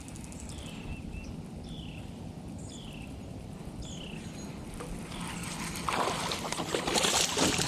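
A bird calls a short down-slurred note about once a second over a low outdoor rumble. From about six seconds in, louder splashing and rustling builds as a fish is brought in.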